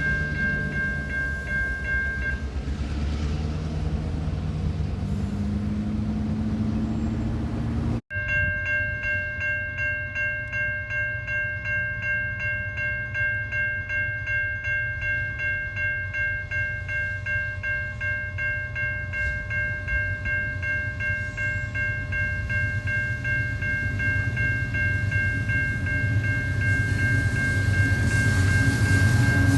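Train rolling by with a steady low rumble and a regular beat of about one a second, under steady high-pitched ringing tones. The sound drops out for an instant about eight seconds in.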